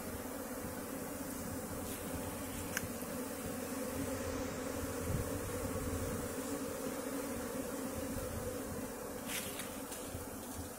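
Indian honey bees buzzing as a colony around an open wooden hive box, a steady continuous hum.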